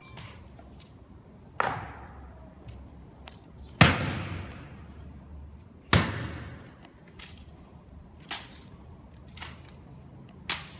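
Honor guards' ceremonial rifle drill: sharp, echoing knocks of rifles being handled and grounded and boots stamping on stone. The three loudest come about two, four and six seconds in, the one at four seconds the loudest, followed by three lighter knocks.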